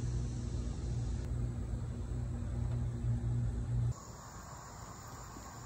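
A steady low hum, cut off abruptly about four seconds in. After it comes quieter outdoor ambience with crickets chirping steadily.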